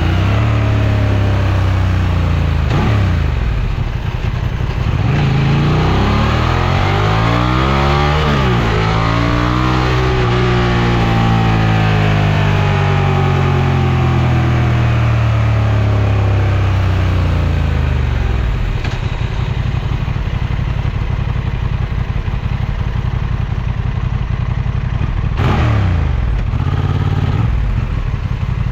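Honda XL750 Transalp's parallel-twin engine running, its pitch rising and falling with changing revs through the first half. It drops to a steady lower running speed about two-thirds through, with one short rev near the end.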